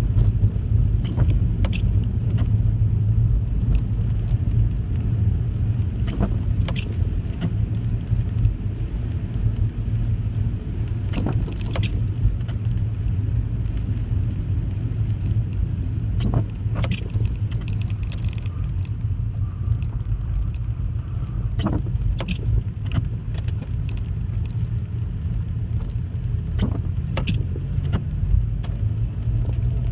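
A car being driven: a steady low rumble from the engine and road, with scattered sharp clicks and rattles at irregular moments.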